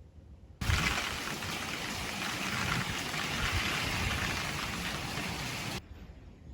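Heavy typhoon rain, a loud steady rush that cuts in suddenly about half a second in and stops sharply near the end.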